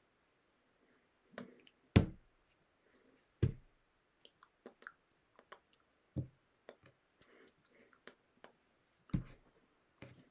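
Hands striking and brushing against each other and the body during signing: several short thumps, the loudest about two seconds in, with scattered small clicks between.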